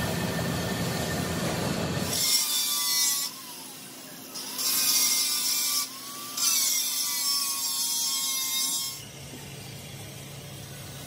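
Cloth rag rubbed hard along a bare steel excavator bucket pin, wiping it clean in three long hissing strokes between about two and nine seconds in. A steady low rumble comes before the strokes.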